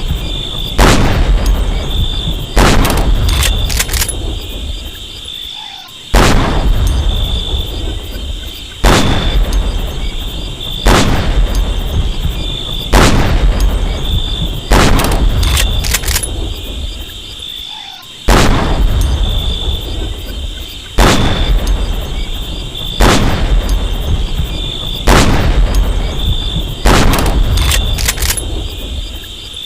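M40A1 bolt-action sniper rifle (7.62×51mm) shots, fired one after another roughly every two seconds, each a sharp crack with a long echoing tail that dies away, about a dozen in all. A steady high-pitched tone runs underneath.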